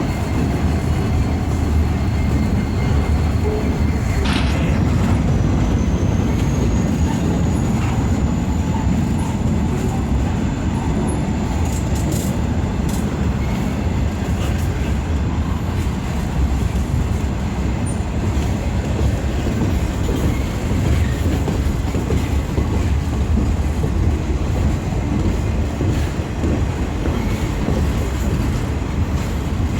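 Cars of an empty military freight train rolling past on the rails with a steady rumble. High wheel squeal is heard in the first few seconds, and a squeal rises in pitch about four seconds in.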